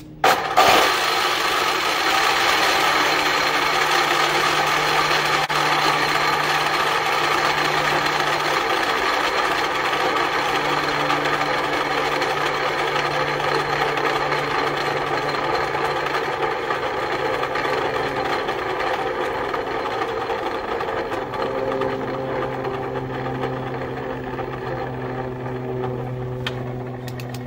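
Ryobi TS1344L miter saw's universal motor starting on a trigger squeeze and running at full speed with a steady whine. It keeps running with the trigger released, sparking heavily at the motor, and gets a little lower and quieter near the end. The owner takes the saw's failure to stop as a sign of bad motor brushes.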